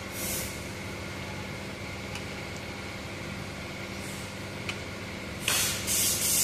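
A steady hum of workshop machinery, with a few short, loud hisses near the end and a fainter one just after the start.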